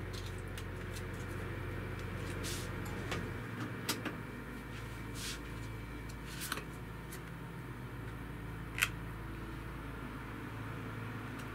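Steady low hum of room tone with a few faint, short clicks scattered through it, the sharpest about nine seconds in.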